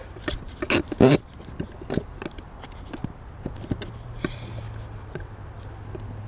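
Handling noise from a camera being set up beside a golf bag: a quick run of knocks and rubs, loudest about a second in, thinning to scattered clicks. A low steady hum comes in from about four seconds on.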